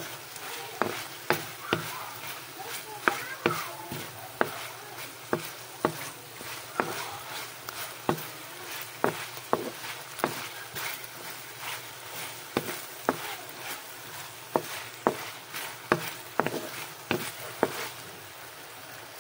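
Chicken pieces sizzling in a hot metal wok while a wooden spatula stirs them, knocking and scraping against the pan roughly twice a second.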